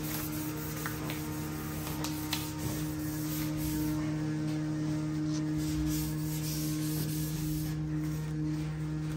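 A steady low hum with two unchanging tones, over soft rustling and light snaps of disposable gloves being pulled onto the hands.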